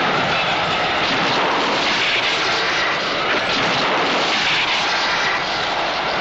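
A loud, steady rushing noise, a dramatic sound effect with no distinct tones or beats, running much like a jet engine.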